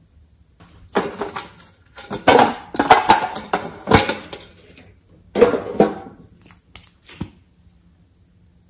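A small metal tin being handled and opened, rattling and clicking in three bursts of clatter, then a few separate sharp clicks near the end.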